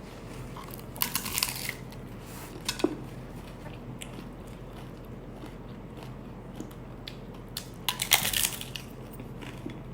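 Crunching bites into a crispy hard taco shell, in three bursts: about a second in, near three seconds and near eight seconds.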